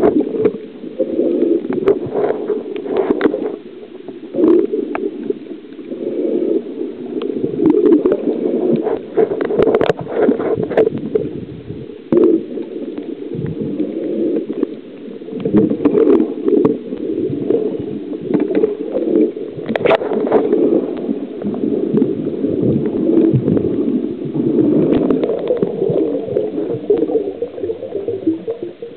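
Muffled underwater water noise against a submerged camera: an irregular, low rushing and gurgling, with occasional knocks.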